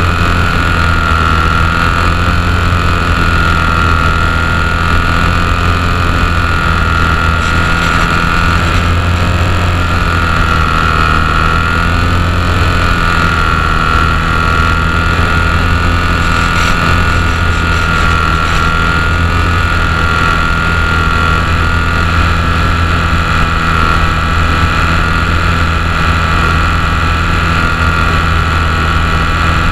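HobbyZone Champ RC plane's small electric motor and propeller whining steadily, heard close up from a camera riding on the plane, with wind noise over the microphone. The whine's pitch wavers gently up and down with the throttle.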